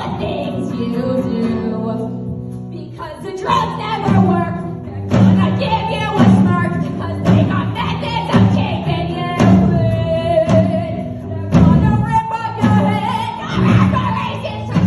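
Live rock band playing: a female lead singer sings the verse over electric guitar, bass guitar and drums. The band drops back briefly and comes in harder about three and a half seconds in.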